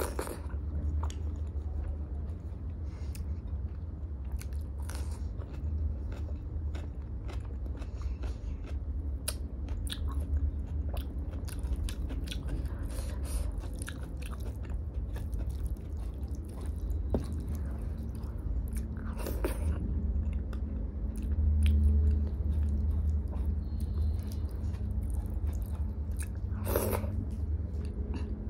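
Close-miked chewing of hand-eaten dal and rice, with many small wet mouth clicks. Fingers mix the lentils and rice on a steel plate between mouthfuls.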